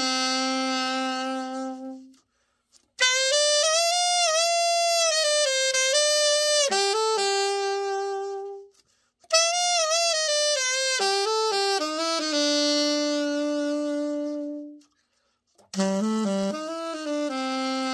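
Yamaha YAS-62 alto saxophone played in short melodic phrases, each ending on a long held note, with three brief pauses between them. It is the play test after a full overhaul.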